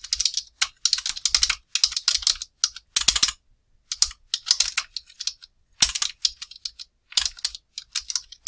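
Computer keyboard being typed on: runs of quick keystrokes broken by short pauses.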